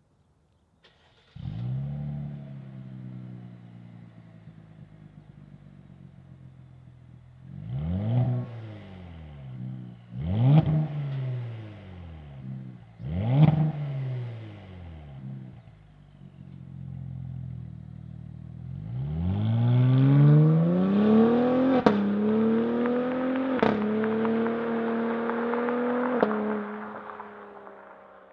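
Cadillac CT5-V exhaust: the engine fires up about a second in and idles, then is blipped three times, each rev rising and falling back. Near the end it pulls hard under acceleration, the pitch climbing with sharp cracks as it steps down at each of about three shifts, before fading out.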